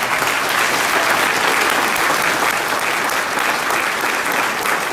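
Large audience applauding, a dense steady clapping that breaks out suddenly.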